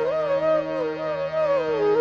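Background music: a flute playing an ornamented, wavering melody over a steady low drone.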